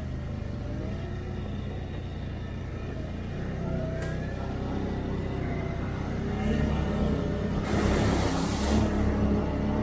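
Can-Am Outlander 850 ATV's V-twin engine running on the trail, its pitch rising and falling with the throttle. A loud rush of noise lasting about a second comes near the end.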